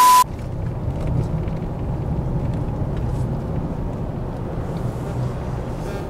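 A brief burst of TV static with a steady beep-like test tone, cutting off about a quarter second in. Then the steady low rumble of a car's engine and tyres, heard from inside the cabin while driving.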